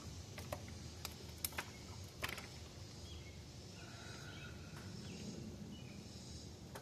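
About six light clicks and taps in the first two and a half seconds, from hand work on the engine's wiring loom, then faint chirps over a low steady background.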